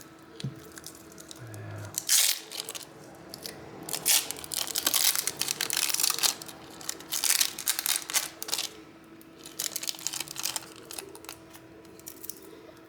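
Crinkling and tearing handling sounds in irregular bursts, as a battery is fitted into an Oppo A3S phone during reassembly.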